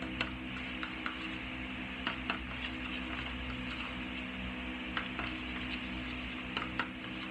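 A utensil stirring depilatory powder and water into a paste in a mixing bowl: a few light clicks and taps of the utensil against the bowl, over a steady low hum.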